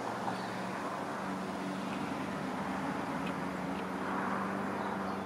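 Distant jet roar of an Airbus Beluga's twin turbofan engines passing high overhead: a steady, broad rushing sound that swells slightly twice, with a steady low hum beneath it.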